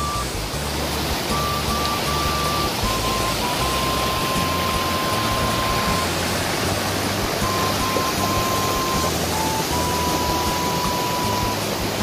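A mountain stream rushing over boulders in small cascades: a steady, loud hiss of water. Soft background music plays under it, with long held single melody notes and a low bass line.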